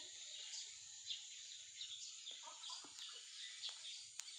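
Birds chirping faintly, a run of short high calls repeating every fraction of a second, with a light click near the end.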